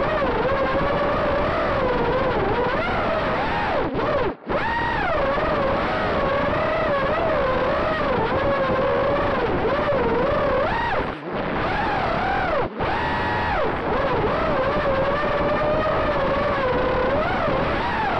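Brushless motors of an FPV racing quadcopter (Emax RS2205 2600KV) spinning GemFan tri-blade propellers: a loud buzzing whine whose pitch swoops up and down with the throttle. It cuts out for an instant three times.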